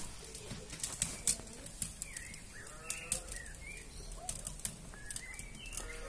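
Birdsong: short whistled notes that rise and fall, mixed with frequent sharp clicks.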